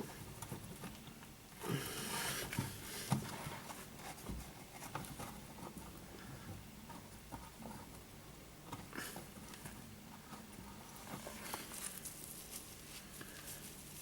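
Faint wet rubbing and scraping with small scattered knocks: a cloth and fingers cleaning black gunk out of the drain filter housing of a Hotpoint Aqualtis washing machine.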